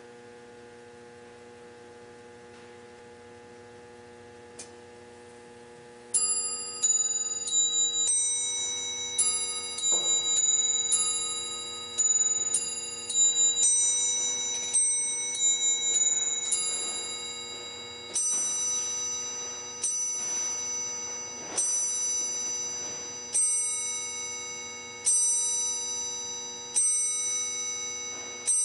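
Glass-cased mantel clock chiming on the hour: after about six seconds of a faint steady hum, its bells ring out a quick tune of clear, ringing notes, then begin slow, evenly spaced single strikes counting the hour.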